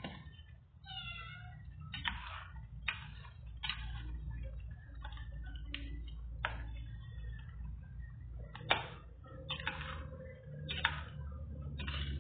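Chicken curry with potatoes and carrots simmering in a pot, its thick sauce popping and plopping irregularly, about once or twice a second, over a low steady hum. A short wavering high-pitched cry sounds about a second in.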